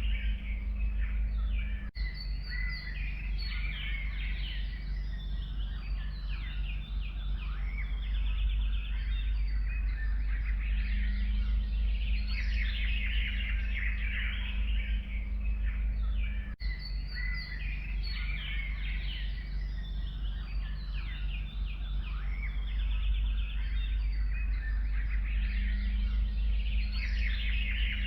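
A chorus of forest songbirds chirping and singing over one another, over a steady low rumble. The recording is a loop: it dips briefly about 2 s in and again about 16 s in, and the same stretch of birdsong then plays again.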